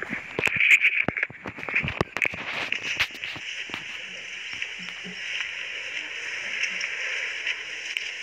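Cassava leaves and stems rustling and crackling against the phone as it is pushed through the plants, a quick run of sharp clicks for about the first three seconds, after which only a steady high hiss-like drone remains.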